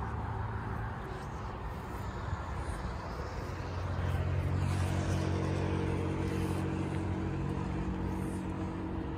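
A vehicle engine running at a steady pitch, growing louder about four seconds in, over open-air background noise.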